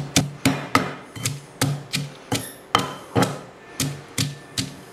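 Wooden pestle pounding garlic, chilies and coriander in a stone mortar: a steady run of short knocks, about two and a half a second, stopping just before the end.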